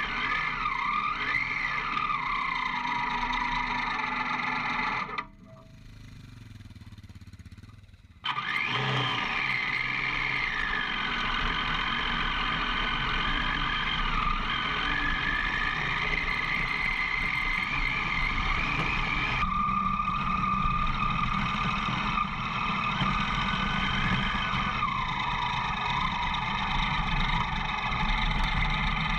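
Motorcycle engine running while riding a dirt track, its pitch rising and falling with the throttle, under wind and tyre noise. About five seconds in the sound drops away sharply for about three seconds, then returns.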